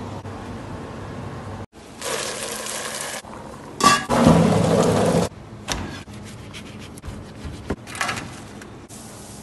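Chickpeas poured out of a bag onto a perforated steel tray in a loud, rain-like rush about four seconds in. Near the end, pieces of dough drop onto a steel counter with a short patter and a few clicks.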